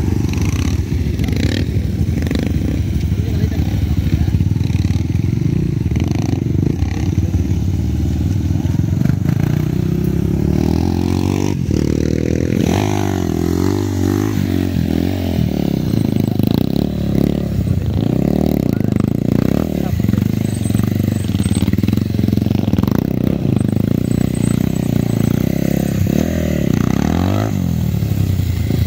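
Motorcycle engine running throughout, its pitch rising and falling as the throttle is worked, with the strongest rise and fall about twelve seconds in as the bike is lifted into a wheelie.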